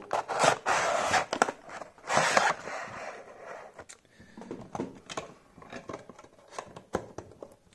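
Cardboard toy box and plastic packaging being opened by hand: rustling, scraping and tearing for the first few seconds, then a few light clicks and taps as the plastic insert is handled.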